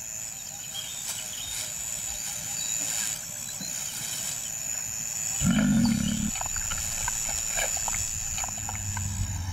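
Lion giving one short, low growl about a second long, some five and a half seconds in, over a steady high buzz of insects.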